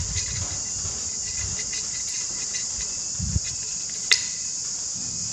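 Steady, high-pitched chirring of insects, with a soft knock a little over three seconds in and a sharp metallic click about four seconds in as hands work the fittings of an engine's aluminium timing cover.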